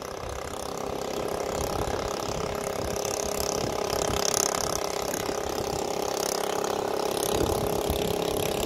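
An engine running steadily with a constant hum, growing a little louder over the first few seconds.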